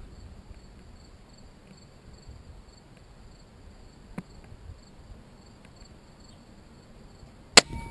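Crickets chirring steadily in the background, with a faint click about four seconds in. Near the end, a single sharp, loud snap as the compound crossbow is fired.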